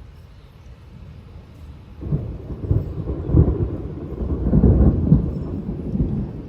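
Thunder from a cloud-to-ground lightning strike: light rain hissing, then about two seconds in a loud, low rumble that rolls on for several seconds in a few louder swells.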